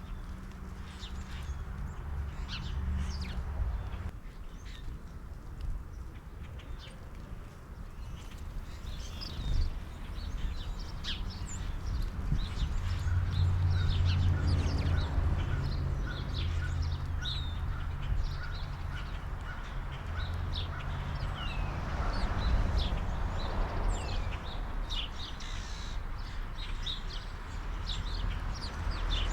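Small birds chirping and calling, with a run of evenly repeated call notes for several seconds in the middle. A low wind rumble on the microphone rises and falls underneath.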